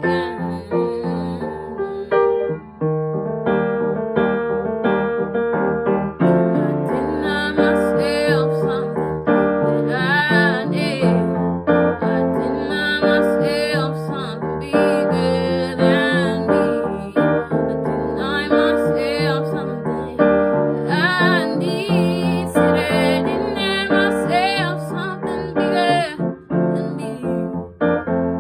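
A woman singing a slow song over instrumental accompaniment, with held, wavering notes.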